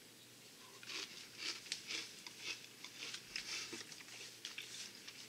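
A person chewing a mouthful of aloo bhujia, small crunchy fried potato-and-chickpea noodles, with faint irregular crunches starting about a second in.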